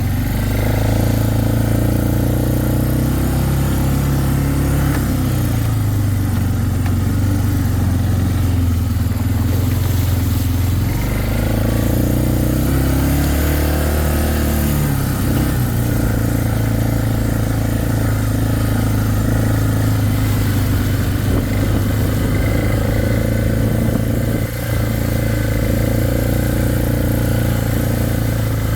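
Four-wheeler (ATV) engine running as it is ridden along, its pitch dipping and rising a few times in the first half, then holding steady.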